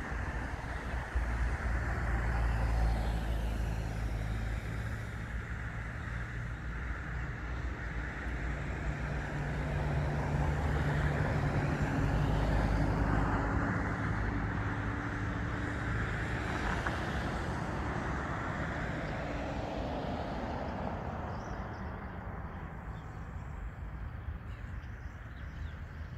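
A motor vehicle's engine running steadily with a low rumble, growing louder in the middle and easing off toward the end.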